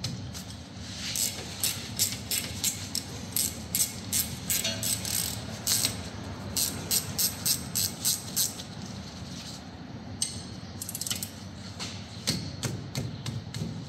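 A ratcheting spanner clicking in quick runs, several clicks a second, as it backs out a front brake caliper's 13 mm bolts.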